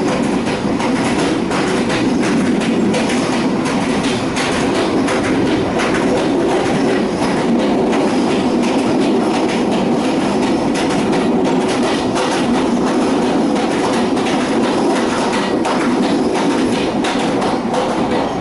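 Train running steadily on the rails, its wheels clicking rapidly and unevenly over the track under a constant rumble.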